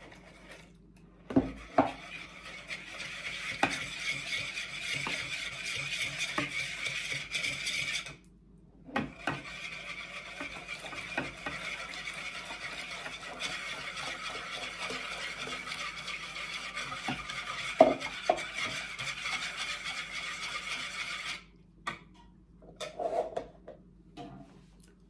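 Wire whisk beating milk into a butter-and-flour roux in a plastic bowl: a fast, steady whisking scrape with occasional knocks of the whisk against the bowl. It breaks off briefly about eight seconds in and stops about twenty-one seconds in, followed by a few light clatters as the utensils are set down.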